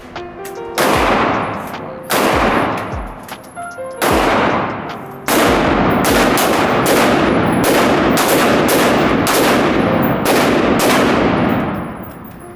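Pistol shots echoing in an indoor shooting range: three single shots spaced a second or two apart, then a quick string of more than a dozen shots.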